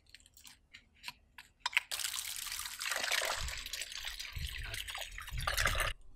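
A few short knife clicks and scrapes as a yam is cut, then water splashing and trickling in a plastic bucket as the yam slices are washed by hand, cutting off suddenly near the end.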